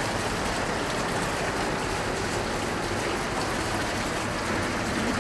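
Steady rush of running water, an even hiss with no distinct events.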